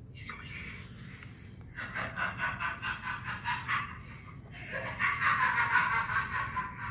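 A person's high-pitched voice in quick gasping pulses, several a second, breaking off and then rising into a louder, drawn-out squeal about five seconds in, played back through a laptop's speakers.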